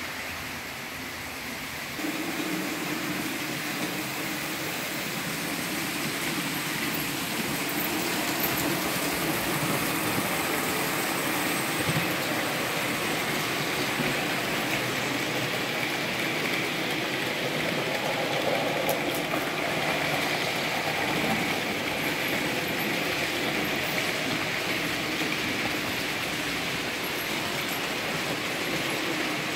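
Märklin model trains running on the layout's track: a steady whirring of motors and wheels on the rails, getting louder about two seconds in.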